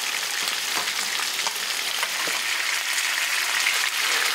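Breaded pike fillets frying in hot oil in a pan: a steady sizzle with many small crackles and pops.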